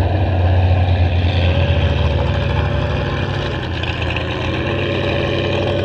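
Demolition derby car engines running in the pits, a loud low rumble that is strongest in the first couple of seconds and then eases, over a steady engine tone.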